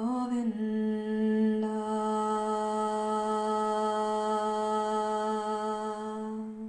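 A woman's voice holding one long chanted note, steady in pitch after a slight wobble at the start, growing brighter after about a second and a half, and stopping after nearly seven seconds.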